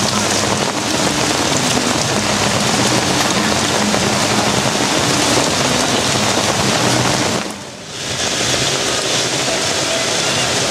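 Heavy downpour: loud, steady rain pelting a canopy overhead and pouring off its edges, dipping briefly about three-quarters of the way through.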